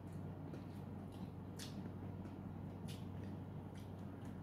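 Quiet room tone with a steady low hum and a few faint, brief clicks.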